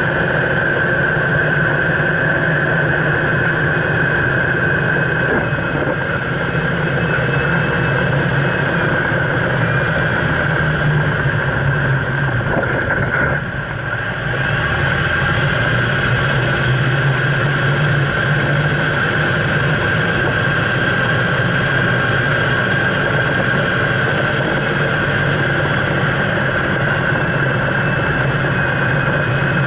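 Jeep Wrangler driving on pavement, heard from beside the front wheel: steady tyre, road and engine noise with a constant high-pitched whine, easing briefly about halfway through.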